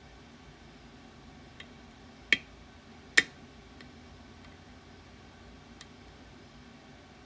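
Two sharp clicks a little under a second apart, with a few faint ticks before and after, from a Ruko Garant lock and the tools working on it.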